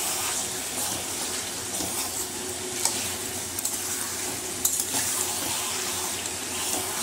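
Mutton sizzling as it fries in a thick spice paste in a metal kadai, at the stage of frying the masala down until the oil separates (kosha). A metal spatula stirs and scrapes through the meat, with a few sharp clicks against the pan.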